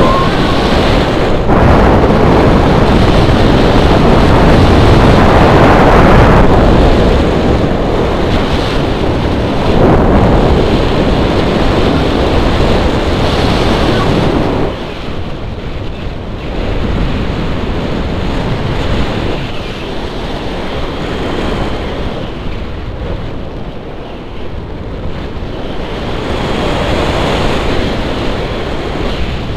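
Wind rushing over an action camera's microphone during paraglider flight, a loud, uneven rushing noise that swells and eases and drops noticeably about halfway through.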